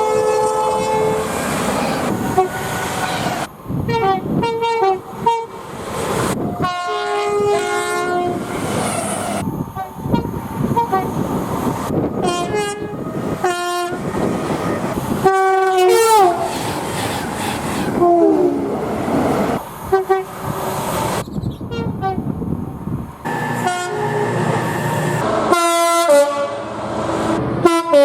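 A run of train horn soundings spliced one after another, each cut in abruptly. The horns sound short blasts that change between notes, a few bending downward in pitch, over the noise of trains running on the rails.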